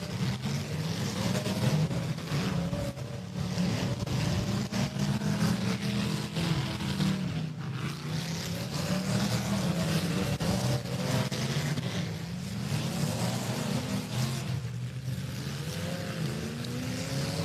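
Several demolition derby cars' engines revving up and down over one another, their pitch rising and falling throughout, with scattered knocks and bangs.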